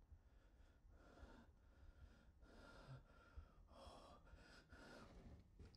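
A man's faint breathing: a run of short breaths in and out, close to the microphone.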